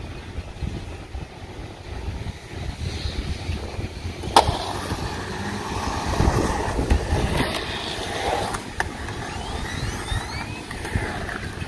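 Skateboard wheels rolling and grinding across a concrete bowl, a rumble that grows louder about four seconds in and rises and falls as the board carves the bowl. A single sharp clack of the board comes just before the rolling swells, with a few lighter clicks later on.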